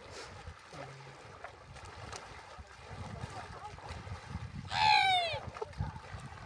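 Low wind rumble on the microphone with water sounds from the shore, broken about five seconds in by one loud shouted call that falls in pitch.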